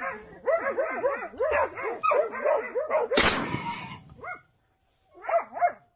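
Hunting dogs baying in a quick run of barks. About three seconds in, a single loud shotgun shot cracks and rings out. A few more barks follow near the end.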